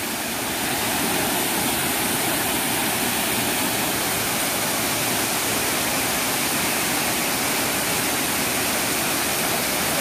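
Waterfall pouring into a rocky pool below, a steady, unbroken rush of water.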